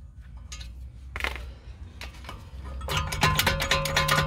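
Metal hand tools clinking and rattling against each other, with a dense flurry of ringing clinks in the last second or so.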